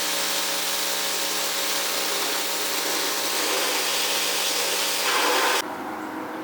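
Handheld power tool running steadily with a motor hum and a rough rubbing hiss as it works old tape off a car fender. It stops abruptly about five and a half seconds in.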